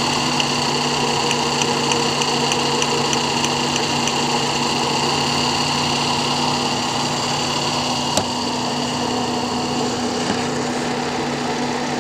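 A 2008 Toyota Vios's 2NZ-FE four-cylinder engine running steadily at idle, with a faint regular ticking in the first few seconds and a single sharp click about eight seconds in. The engine has a misfire that the mechanic traces to an intermittent supply at the number 1 ignition coil.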